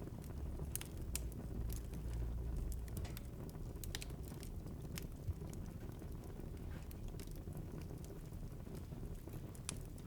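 Wood fire in a fireplace crackling: irregular sharp snaps and pops over a low steady rumble of the flames, with one louder pop about five seconds in.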